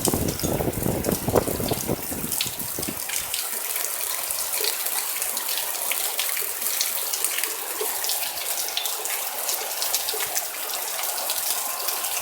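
Heavy thunderstorm rain pouring down: a steady hiss dense with sharp drop ticks. A deep rumble runs under it for the first three seconds or so, then stops suddenly.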